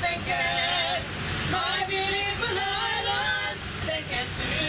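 A small women's choir singing together, held notes with a waver in several short phrases, over the steady low rumble of the narrow-gauge train running.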